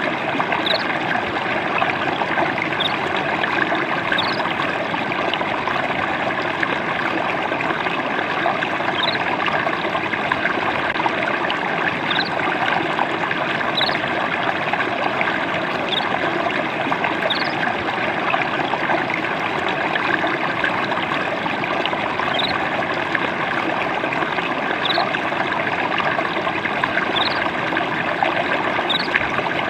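Gentle babbling water, a small stream trickling and splashing steadily, with faint short high chirps every second or two.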